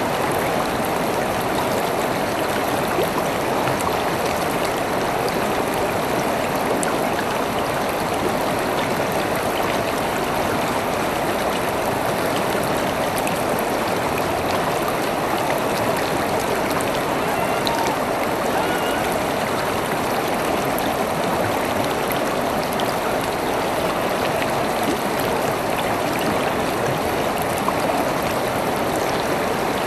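River water flowing steadily over rocks, an even rushing and babbling.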